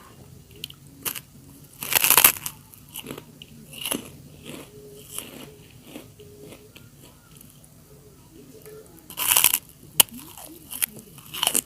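A person biting and chewing crunchy food close to the microphone: two loud crunches, about two seconds in and again near the end, with quieter chewing and mouth clicks between.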